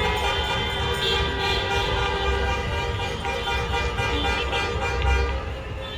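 Many car horns honking at once in street traffic, long overlapping blasts held without a break, over the low rumble of traffic.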